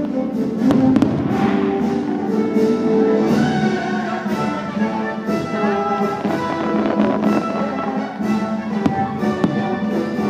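Orchestral fireworks-show music with strings and brass, with repeated fireworks bangs and crackles over it.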